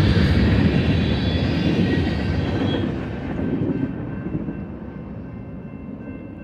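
Freight cars of a BNSF manifest train rolling past on the rails, a steady wheel-on-rail rumble that fades continuously as the tail of the train goes by and draws away.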